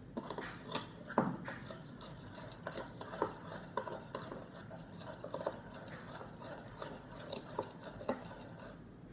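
A spoon stirring and scraping in a bowl of slime mixture (glue, borax and kinetic sand), making irregular clinks and scrapes against the bowl.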